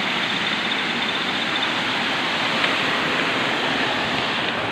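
Steady rushing of a small mountain stream pouring over and between rocks.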